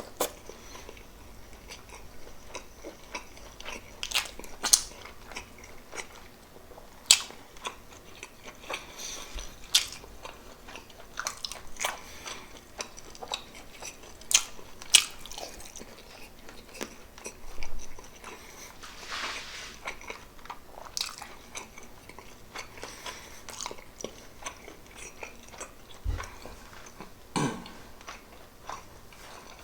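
Close-miked chewing and mouth sounds of a person eating pork adobo with rice: irregular wet smacks and sharp clicks.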